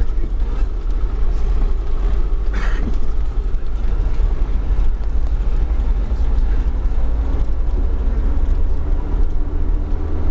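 Minibus engine and tyre rumble heard from inside the cab while driving on an unpaved dirt road, a steady heavy low rumble. A brief higher-pitched noise cuts in about two and a half seconds in.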